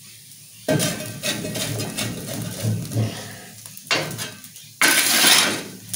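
A metal shovel scraping and dragging glowing embers out of the fire and across a brick barbecue hearth: a run of rough metal scrapes and clinks starting about a second in, a short scrape near four seconds, and a louder harsh scrape about five seconds in.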